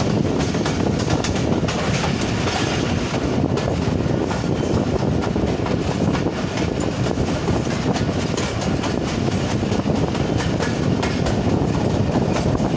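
Passenger train running at speed, heard from an open coach doorway: a steady rushing rumble of wheels on rail with a rapid clatter of clicks over the rail joints.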